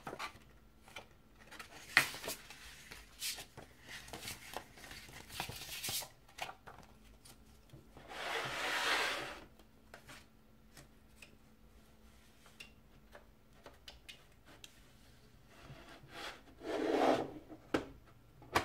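Handling of a glossy paper CD booklet and a plastic jewel case: paper rustling and crinkling with small clicks, a couple of longer sliding rubs, and a sharp plastic click near the end as the case is snapped shut.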